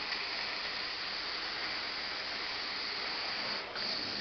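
Steady rushing hiss of a carpet extraction wand, fed by a Techno Viking truck-mount machine, as it is drawn across carpet, spraying hot water and sucking it back up. The hiss drops out briefly near the end, then resumes.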